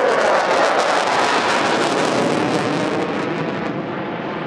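Saab JAS 39 Gripen's Volvo RM12 turbofan in afterburner as the fighter climbs away: a loud, crackling jet roar that fades a little near the end.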